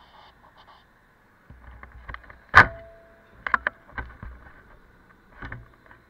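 A series of sharp knocks and clicks over a faint steady hiss. The loudest comes about two and a half seconds in and rings briefly, a quick cluster of three or four follows a second later, and one more comes near the end.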